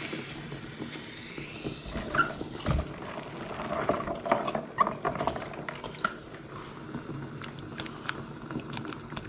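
Pan of salted water at a boil, with scattered small wet clicks and splashes as handfuls of live prawns are handled and dropped in.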